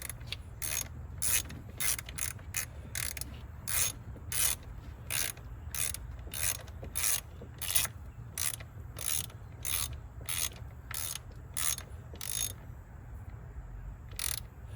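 Hand ratchet wrench turning a coil pack screw down by hand, one short ratcheting rasp per back-stroke at about one and a half a second, stopping near the end as the screw seats.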